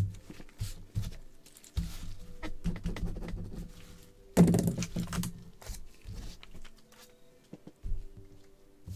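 Gloved hands handling trading cards and hard plastic card holders on a tabletop: scattered taps, clicks and light thunks, with a louder rustling scrape about four and a half seconds in.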